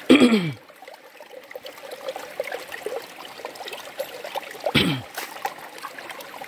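Hands scooping and stirring wet gravel and sand in shallow stream water: water sloshing and trickling, with small ticks of pebbles. Twice, at the very start and about five seconds in, a short vocal sound drops in pitch, the loudest thing heard.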